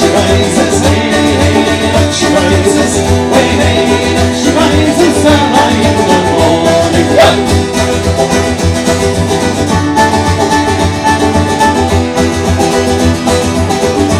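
Live Irish folk band playing an instrumental passage with strummed acoustic guitars, fiddle and a steady bodhrán beat.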